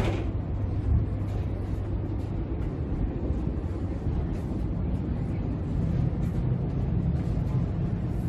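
Wind buffeting the microphone over the steady low hum and rumble of a moving cruise ship's machinery. There is a brief knock right at the start.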